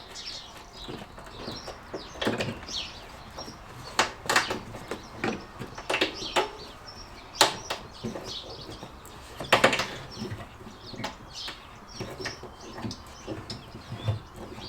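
Old frayed battery earth cable being flexed back and forth by hand to break its last strands: irregular metallic clicks, creaks and scrapes from the cable and its terminal, the sharpest about four, seven and a half and nine and a half seconds in.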